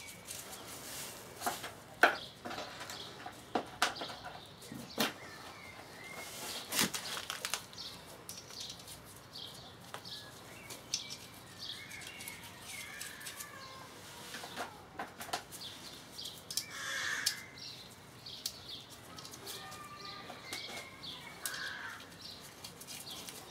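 Washers, lock washers and nuts clinking as they are fitted by hand onto the studs of a VW Beetle gearbox casing, heard as scattered light metallic clicks. Birds chirp faintly now and then.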